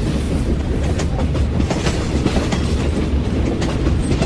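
Subway car running along the track, heard from inside the car: a steady low rumble of wheels on rails, with frequent small clicks and rattles.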